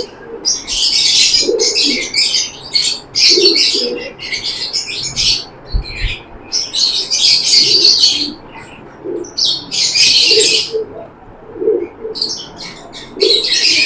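Small cage birds chirping and chattering in quick bursts, with pigeons cooing in short low notes underneath.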